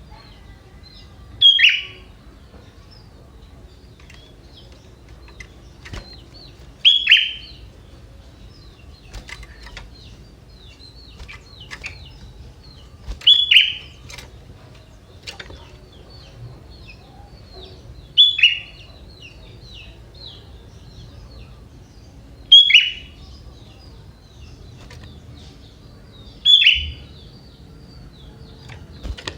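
Sooty-headed bulbul (kutilang) calling: six short, loud calls, each falling quickly in pitch, spaced about four to six seconds apart, with faint high chirping in between. The song carries prinia-like (prenjak) phrases.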